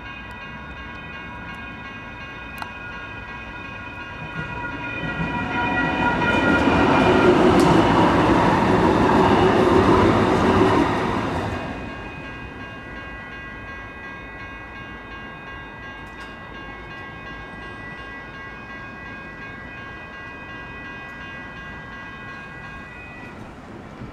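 Electronic railroad crossing bells (a GS Type 1 and a WCH Type 1.5 e-bell) ringing steadily while a SACRT CAF light rail train passes. The train's rumble swells from about four seconds in and fades out about twelve seconds in. The bells cut off shortly before the end as the crossing deactivates.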